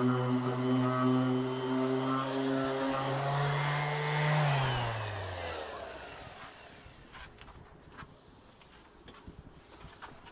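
A motor running at a steady pitch, then switched off and winding down, its hum sliding lower and dying away about five to six seconds in; a few small clicks follow.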